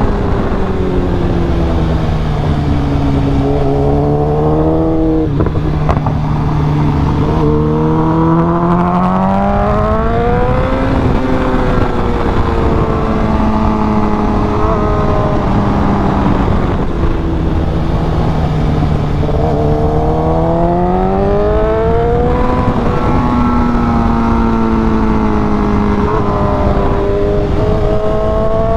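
BMW S1000RR's inline-four engine under way, its note rising and falling repeatedly as the throttle is rolled on and off through the gears.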